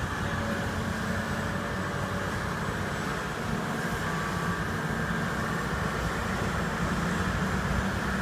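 Heavy construction machinery running steadily, a diesel engine's low drone with a higher mechanical whine over it, at a concrete pour.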